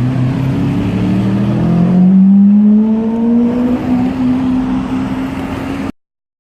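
Lamborghini Aventador LP700-4's V12 engine running, its note holding steady and then, about two seconds in, rising steadily in pitch as the car accelerates. The sound cuts off suddenly near the end.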